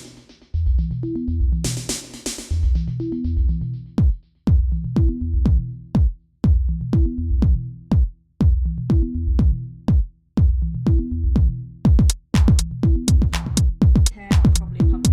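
Electronic background music with a drum-machine beat over a repeating bass line; the drum hits come faster near the end.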